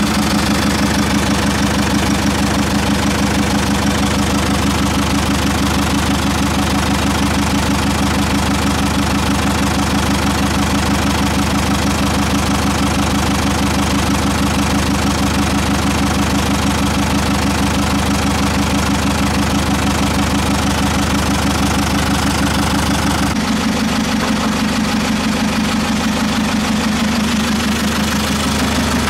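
An engine running steadily at idle with a fast, even pulse. Its tone changes abruptly about two-thirds of the way through, then it runs on steadily.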